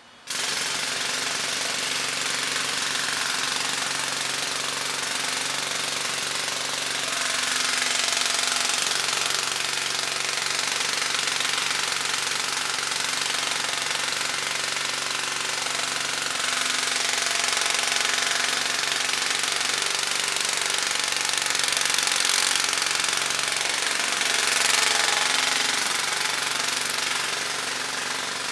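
Jackhammer starting abruptly and hammering continuously, with the steady hum of heavy equipment's engine running underneath.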